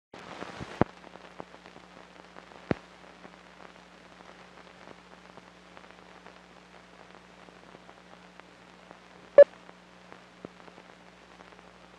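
Surface noise of an old 16 mm optical film soundtrack running through the leader: faint crackle and hiss over a low steady hum, with a few sharp pops, the loudest about nine seconds in.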